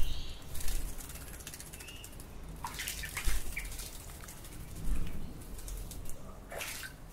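Noisy miners' wings flapping in several quick flurries as they fly to and from a perch, with a few short chirps and water dripping into a birdbath.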